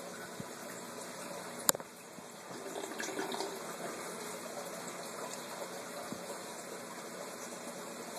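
Water running through a homemade Carlson surge device built from an old canister filter on an aquarium, a steady flow that grows louder about two and a half seconds in. A single sharp click comes about a second and a half in.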